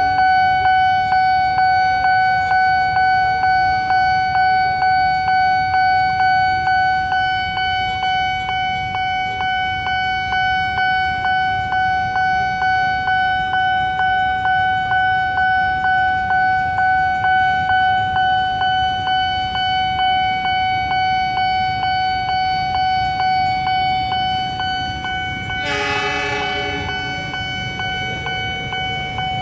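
Nippon Signal electronic level-crossing alarm ringing continuously, a bright repeating ding about twice a second, over the low rumble of waiting traffic. Near the end a horn sounds once for about a second.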